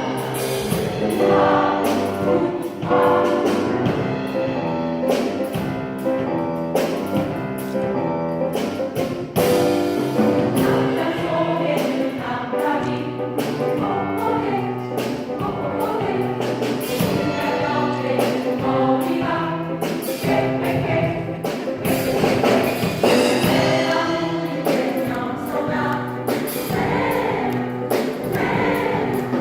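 A choir singing a rhythmic song in several voice parts with accompaniment, the notes changing quickly on a steady beat.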